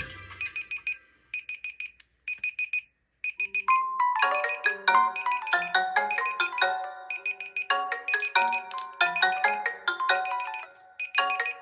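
Smartphone ringtones. First comes a sparse run of short, high repeated chimes separated by silent gaps. About four seconds in, a busy marimba-like melody of quick bright notes takes over and fades out near the end.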